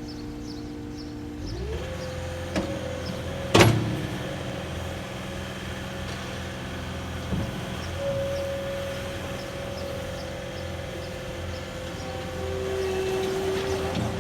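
Cat 242D skid steer loader's diesel engine idling, then revving up about a second and a half in and running on at higher speed. There is one loud metallic clank a couple of seconds after the rev-up and a couple of lighter knocks later.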